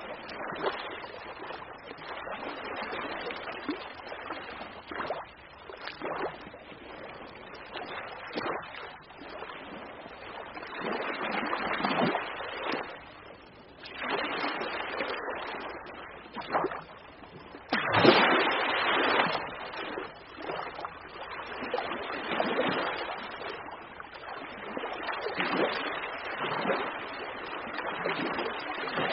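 Ocean waves breaking and washing in, a rushing noise that swells and falls every few seconds, with the loudest crash a little past halfway.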